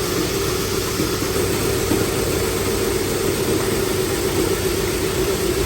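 Duct-cleaning equipment running steadily: a constant rush of air over a steady hum.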